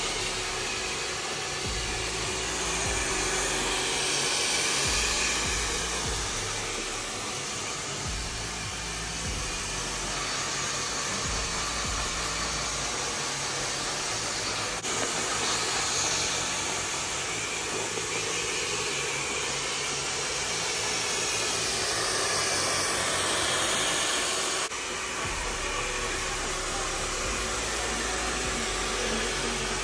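Handheld hair dryer blowing steadily at a salon chair, during a hair-smoothing treatment.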